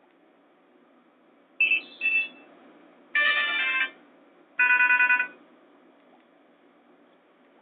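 A Nokia 7610 ringtone or alert tone playing through the small speaker of a Nokia 220 4G. It goes two quick chirps, a short chord-like tone, then a fast pulsing trill, with a faint hiss between.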